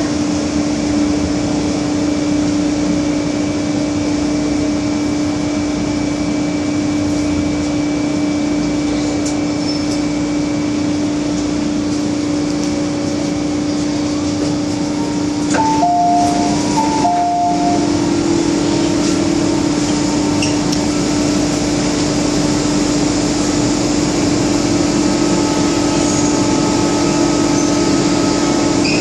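Inside an MTR Kwun Tong line M-Train car: a steady running hum with a constant droning tone throughout. About halfway through there are a few short electronic beeps.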